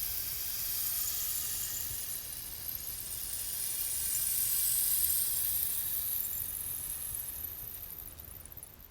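Handmade eucalyptus-wood rainstick turned over, its fill trickling down inside in a steady hissing cascade with a faint ringing shimmer, which fades away near the end as the last of it runs through.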